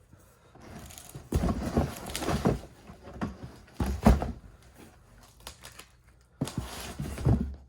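Unpacking and handling noises: rustling with knocks and thuds in three bursts, about a second in, around four seconds in, and near the end.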